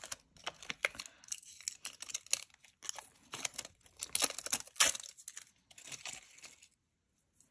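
Crinkling and tearing as a roll of masking tape is unwrapped and handled: a run of sharp crackles and short rustles that stops about six and a half seconds in.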